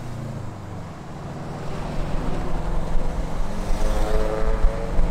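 Cars driving on a road, engines running with tyre noise, growing louder about two seconds in.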